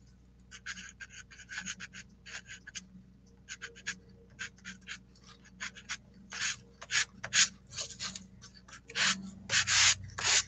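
Pastel stick rubbing and scratching across paper in many short, irregular strokes, louder and closer together in the last few seconds.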